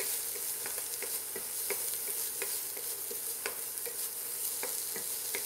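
Diced poblano pepper and onion sizzling in a nonstick pan, with a wooden spatula scraping and tapping against the pan in frequent short clicks as it stirs them.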